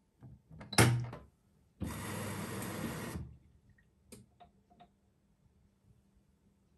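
Electrolux top-loading washing machine starting its cycle: a sharp click as the Start/Pause button is pressed, then a hiss of about a second and a half. A few small clicks follow as the door lock engages, and near the end a steady hiss of water filling begins.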